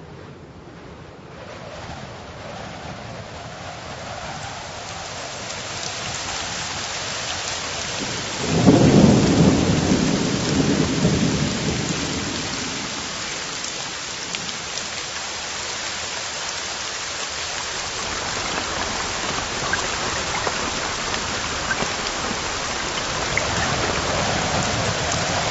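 Steady rain that fades in at the start, with a roll of thunder about eight seconds in that rumbles loud and dies away over a few seconds.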